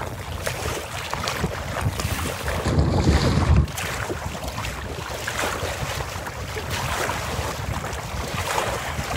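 Strong wind buffeting the microphone over choppy lake water, with waves slapping and splashing against the kayak's hull and spray coming off the bow. A heavier gust builds about three seconds in and cuts off suddenly.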